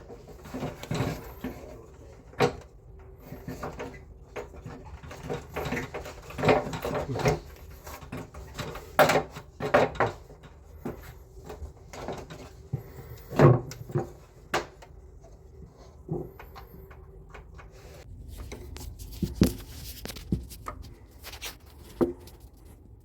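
Irregular knocks, clicks and clatter of hard parts and tools being handled while the indoor unit of a split air conditioner is taken apart.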